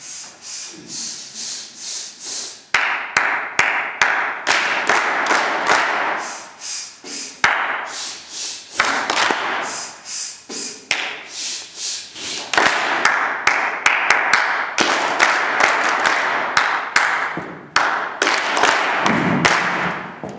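A men's chorus doing a rhythmic warm-up: runs of quick, sharp pulses, several a second, lasting a few seconds each, with a rushing hiss behind them.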